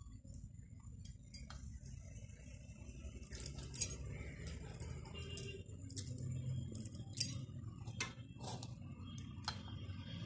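Scattered light clinks and taps of metal kitchenware: a spoon in a metal mixing bowl and a steel plate, knocked while coconut-jaggery balls are rolled by hand and set down. The loudest clinks come about four and seven seconds in, over a low steady hum.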